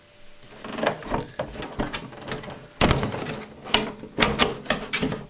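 Handling of a large RC car and its hard plastic parts: a run of irregular knocks, clacks and taps, the loudest about three seconds in.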